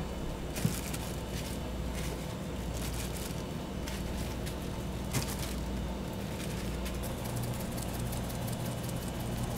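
Raw pork belly slabs being handled with gloved hands and set on a small stainless steel tray, with light taps and clicks, over a steady low kitchen hum. Near the end, a fine crackle of coarse salt being sprinkled onto the meat.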